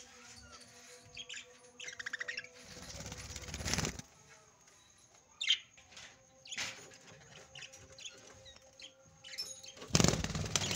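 Budgerigars chirping, with bursts of wing flapping; the loudest flutter comes at the end.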